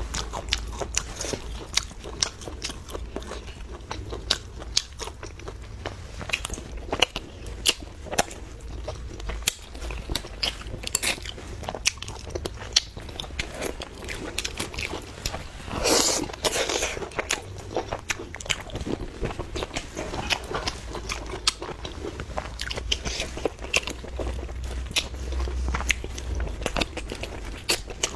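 Close-up eating sounds: a person biting and chewing food, crunchy and wet, with many short mouth clicks and a louder burst about 16 seconds in.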